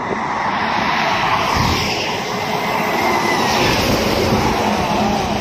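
A coach bus passing close by on a highway: a steady rush of engine and tyre noise that builds over the first second, with a low hum showing through in the second half.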